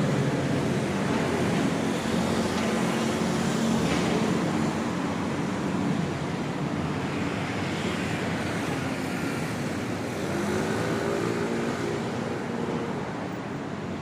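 City street traffic: a steady wash of road noise with the engine hum of passing vehicles, one engine note rising and falling a little past the middle.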